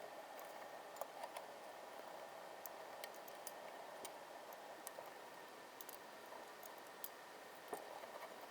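Faint, irregular small ticks and clicks over a steady low hiss.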